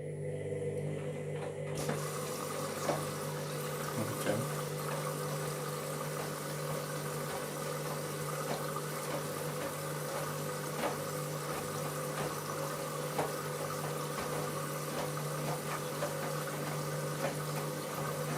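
Washing machine drum turning during a wash, with the motor humming steadily and water swishing through the load, plus scattered light clicks. The owner is listening for a suspected drum or motor fault in this noise.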